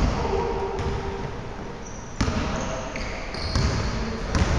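Basketball being dribbled on a hardwood gym floor: a few separate, irregularly spaced bounces.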